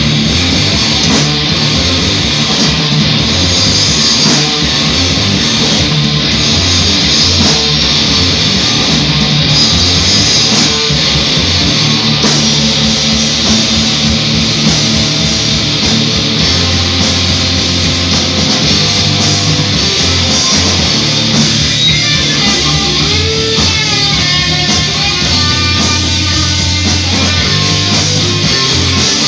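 Live heavy rock band playing: electric guitars, bass and drums.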